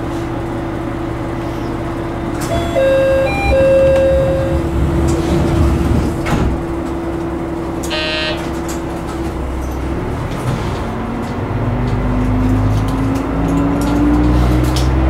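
Kuma River Railway KT-500 diesel railcar heard from the cab: the engine idles with a steady hum, a few short chime-like tones sound about three seconds in and a brief horn toot about eight seconds in. From about eleven seconds the diesel engine revs up, its pitch rising, as the railcar starts to pull away from the platform.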